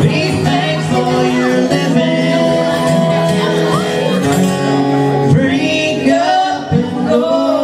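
A live country song: strummed acoustic guitar with sung vocals holding long notes.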